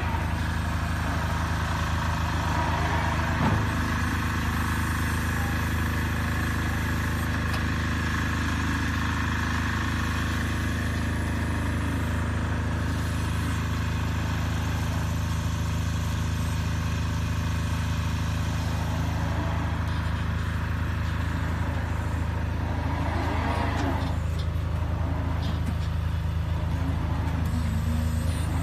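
Small battery-electric wheel loader working a sand pile: a steady low machine hum from its electric drive and hydraulics as it drives in and loads the bucket, with a single knock about three and a half seconds in.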